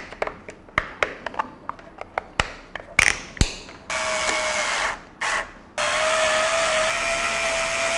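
Small clicks and taps of a plastic case lid being fitted by hand. Then an electric screwdriver runs at a steady pitch, driving screws into the lid: about a second, a short burst, then a longer run near the end.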